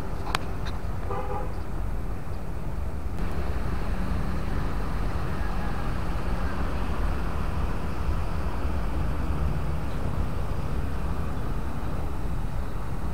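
Diesel engine of a Plasser & Theurer multiple tie tamper running steadily, growing louder about three seconds in. A short horn toot sounds in the first second or two.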